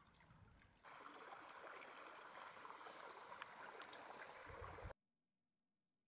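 Water trickling, likely meltwater from a melting snow patch, rising to a fuller running-water sound about a second in, then cutting off abruptly near five seconds.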